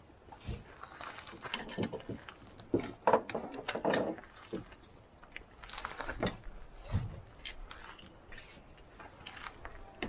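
Irregular knocks, clicks and rustles of objects being handled, loudest about three to four seconds in.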